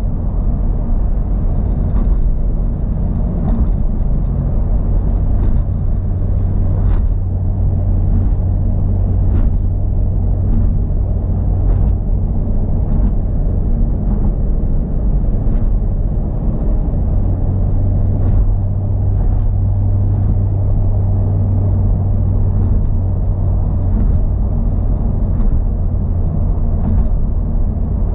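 Honda Civic Type R (FL5) driving along: a steady low rumble of engine and road noise, with short clicks or knocks every second or two.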